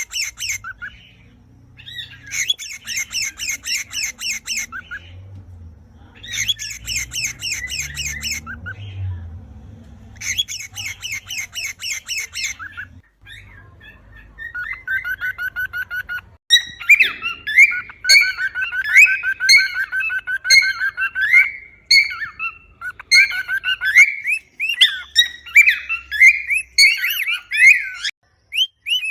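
Cockatiel mating call: three bursts of rapid, harsh chattering notes in the first half, then a long run of quick whistled notes that slide up and down.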